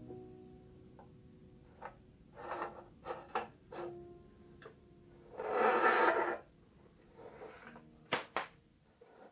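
Handling knocks and scrapes of a band saw's metal table being tilted on its trunnion, with a spirit level shifted and knocked on the tabletop. A series of short clunks and clicks, with one longer scraping rub about six seconds in as the loudest sound.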